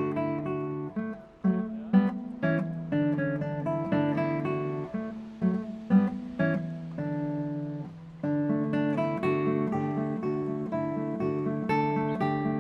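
Background music: an acoustic guitar playing plucked notes and strums, with a brief pause about two-thirds of the way through.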